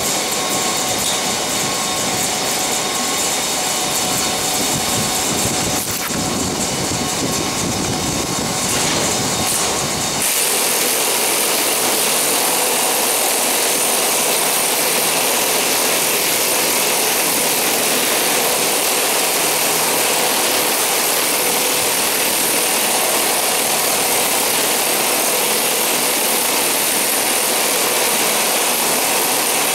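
Steady loud machinery noise at a grain train's unloading pit. About ten seconds in it changes abruptly from a rumbling din to a hiss with a steady hum.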